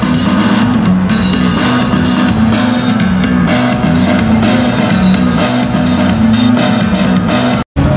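Rock music with guitar and a drum kit, playing steadily. It drops out for an instant near the end.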